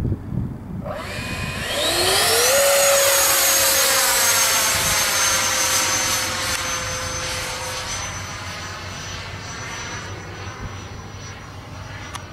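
90mm electric ducted fan of a radio-controlled F-16 jet spooling up with a rising whine about a second in, then holding a steady high whine that slowly fades as the jet flies away.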